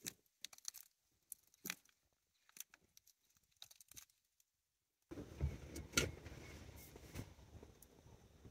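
Sparse dry crackles and crunches of footsteps on a fallen log and dry leaves. About five seconds in, the sound changes abruptly to a steady low rumble.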